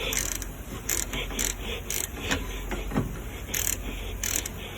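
Socket ratchet wrench clicking in short bursts, stroke after stroke, as the brake caliper bolts are run in.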